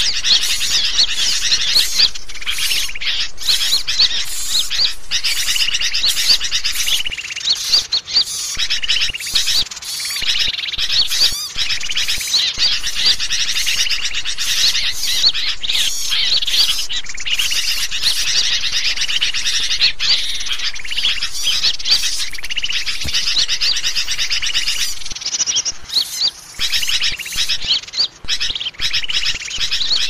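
Dense chorus of many songbirds of mixed species chirping, twittering and trilling all at once in a busy, overlapping din of high calls: a bird-lure (pikat) recording made to draw wild birds in.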